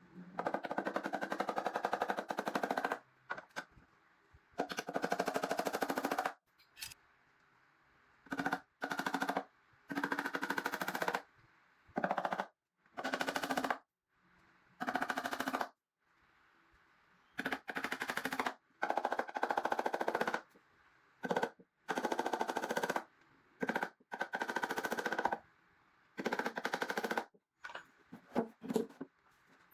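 Handheld power drill-driver running in repeated bursts of about one to three seconds, with a fast rattling clatter in each burst.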